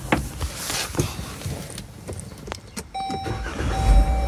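A few clicks and knocks, then about three seconds in a steady electronic chime sounds and the Chrysler minivan's engine cranks and starts with a low rumble near the end, under a battery tester's cranking test.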